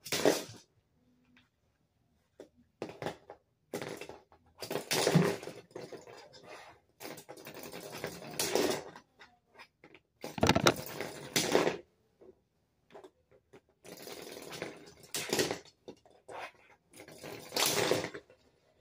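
Lego spinning tops being handled, spun and knocking together: irregular bursts of plastic rattling and scraping, each a second or so long, with short quiet gaps between.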